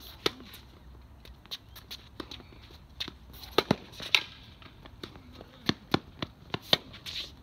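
Tennis rally: the ball is struck by rackets and bounces on the court, giving a string of sharp pops and knocks at uneven gaps, some in quick pairs, with footsteps between.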